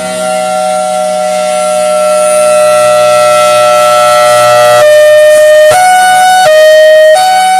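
Federal Signal Thunderbolt 1003 outdoor warning siren sounding an erratic hi-lo signal. It holds one tone, sagging slightly, for nearly five seconds, then flips between its high and low tones about every two-thirds of a second.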